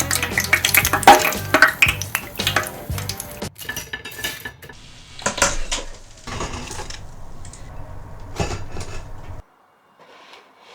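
Dishes and metal utensils clinking and clattering in a rapid run of knocks, thinning out after about three and a half seconds, with the sound cutting off near the end.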